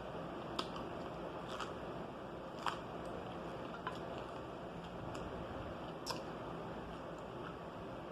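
A person chewing pizza close to the microphone, with a handful of short sharp crunches and mouth clicks at irregular moments over a steady background hiss.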